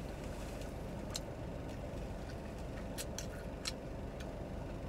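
Close-up chewing of a grilled cheese sandwich with the mouth closed, a few faint wet mouth clicks, over a steady low hum inside a car.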